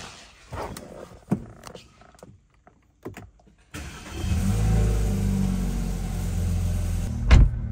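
A few knocks and clicks from inside the car, then, about four seconds in, the freshly rebuilt 2.0-litre turbocharged N20 inline-four of a BMW 328i running on a cold start, its fast idle easing down. A sharp thump near the end.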